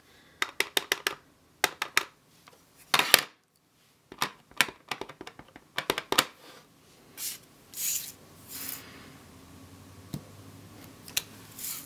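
A clear acrylic stamp block tapped repeatedly on a dye ink pad, with light clicks of the pad and block being handled, then a few short rustles of cardstock sliding on a cutting mat as the stamp is pressed down.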